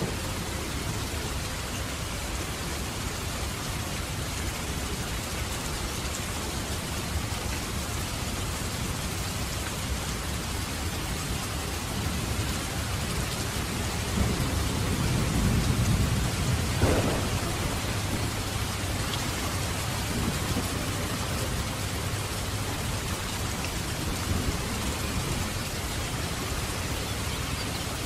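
Steady rain falling on a surface, with a low rumble of thunder that builds about halfway through.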